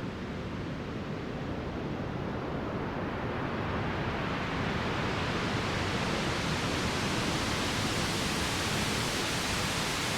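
Synthesized ocean wave made from the VCV Rack noise generator: a rush of filtered noise whose voltage-controlled filter, swept by an LFO, slowly opens, so the hiss grows steadily brighter and a little louder, like a wave swelling toward the shore.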